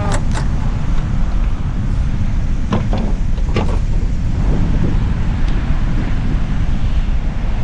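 Wind buffeting the microphone in a steady low rumble, with a few sharp clicks and knocks of gear being handled near the start and around three seconds in.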